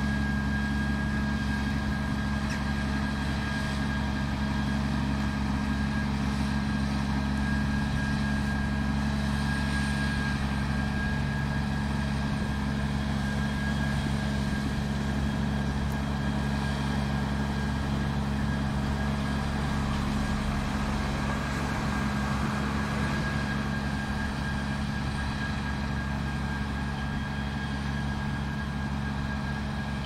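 Grimme Tectron 410 self-propelled potato harvester and a New Holland tractor working side by side, their diesel engines running steadily under load with a thin, steady whine above the drone.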